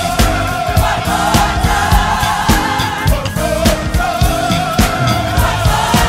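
Gospel choir singing long-held notes in harmony, backed by organ and a band with a steady drum beat.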